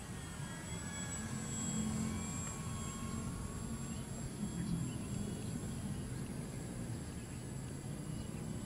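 A foam RC model plane flying under its electric motor and propeller. A thin whine rises and falls in pitch in the first few seconds over a steady low rumble.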